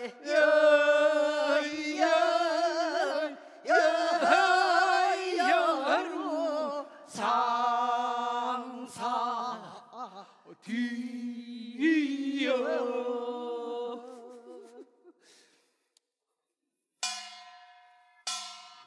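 Korean folk singing of a farmers' work song, with long held notes that waver in pitch, ending about 15 seconds in. After a short pause, a small metal gong is struck twice, each stroke ringing and fading.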